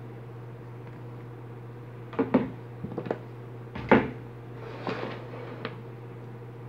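Handling knocks and bumps from a fan motor and tools being moved on a workbench during soldering: a few short sharp knocks between about two and six seconds in, the loudest about four seconds in, over a steady low hum.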